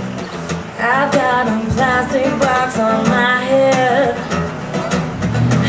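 A woman singing to her own acoustic guitar strumming in a live performance. The guitar strums alone for the first second, then her voice comes in and carries the melody over it.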